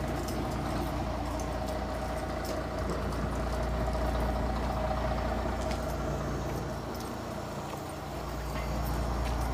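Steady low engine rumble of a nearby vehicle, swelling slightly near the end, with faint clicks over it.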